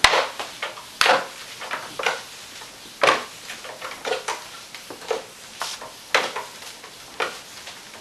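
Power cord being wound back onto the cord hooks of a Kirby Sentria vacuum's handle: a string of sharp knocks and rustles, roughly one a second, as the cord and hands strike the plastic handle.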